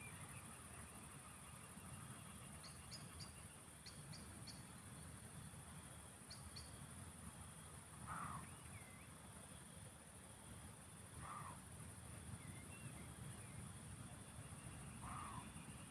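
Roe deer barking three times, a few seconds apart, a short hoarse bark each time. Under the barks, insects trill steadily and high, and a bird gives a few short chips.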